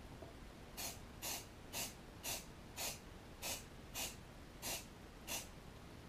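Rust-Oleum camouflage aerosol spray paint can hissing in nine short bursts, about two a second, as paint is dabbed on through a leaf stencil.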